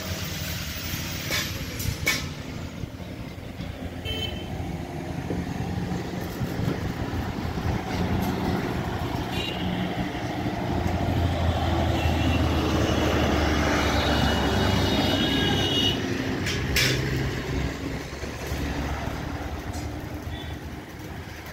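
Engine running steadily, loudest around the middle, with a few short high horn toots over it.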